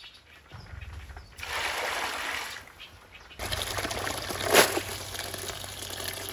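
Water running from a hose into a plastic basin. It comes in two stretches, briefly about a second and a half in and again from about three and a half seconds in, with one sharp louder splash about a second after the second stretch starts.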